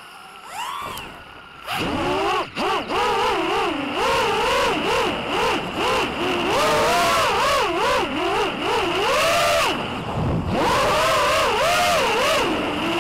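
FPV racing quadcopter's electric motors and propellers whining. A short rise and fall in pitch as it passes over, then a loud whine whose pitch swoops up and down constantly with the throttle.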